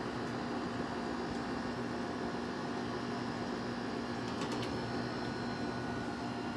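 Haier 5,200 BTU window air conditioner (model HWF05XC7) running steadily on low fan: an even hum with a constant low tone from the compressor under the rush of the fan.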